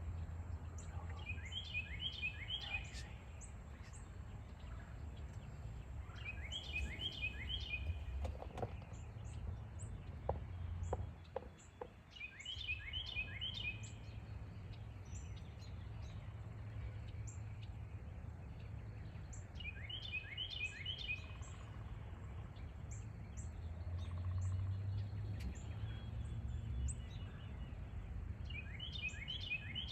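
A songbird singing a short phrase of quick, falling notes, repeated five times about every six seconds, with fainter high chirps from other birds and a low steady rumble behind it.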